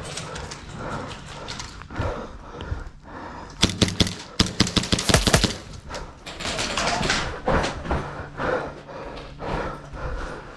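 A rapid string of sharp airsoft gun shots and BB impacts, about two seconds long, starting about three and a half seconds in. Around it are repeated loud breaths close to the microphone.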